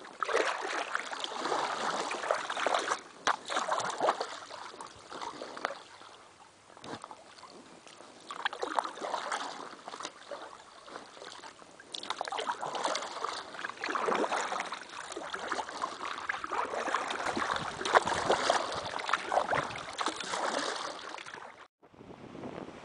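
Double-bladed paddle strokes pulling a canoe through calm river water: repeated splashing and dripping in uneven runs with short pauses between. Near the end it cuts off sharply and gives way to wind and surf on a beach.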